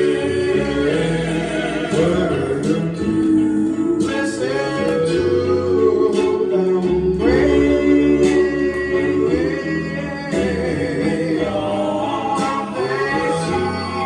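Recorded song: a male vocal group singing in harmony over guitar and backing instruments, with no words picked out.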